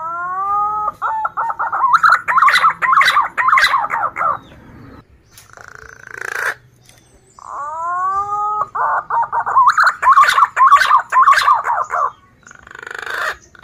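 Male punai (green pigeon) singing: two long phrases, each opening with a few drawn-out whistles that bend up and then down, followed by a quick run of warbling notes.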